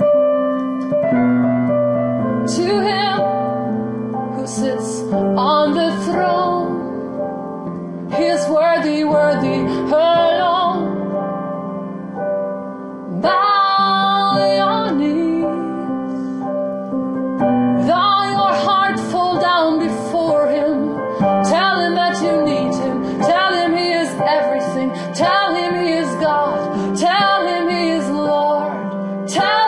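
Piano playing slow held chords, with a singing voice improvising melodic phrases over it that come and go in short lines.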